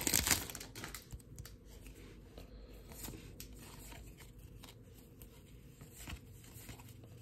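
Plastic trading-card pack wrapper crinkling loudly as it comes free at the start, then the soft, faint clicks and slides of baseball cards being thumbed one by one from the front of the stack to the back.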